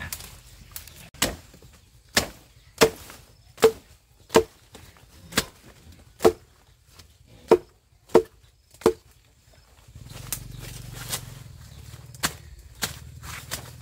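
About ten sharp chopping strikes, roughly one every three-quarters of a second, each with a short ring. After a brief pause, a low steady hum starts, with a few weaker strikes over it.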